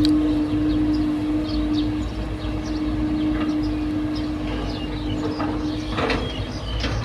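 Heavy machinery running with a low rumble and a steady hum; the hum drops out briefly about six seconds in. Birds chirp over it.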